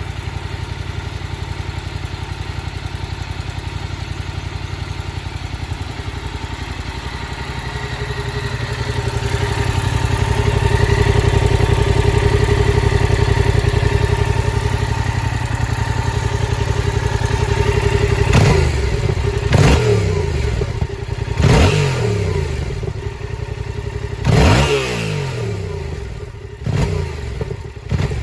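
A 2016 Yamaha MT-07's 689 cc parallel-twin engine on its stock exhaust, running steadily at idle and then revved in a series of quick throttle blips over the last ten seconds, each rising and falling sharply.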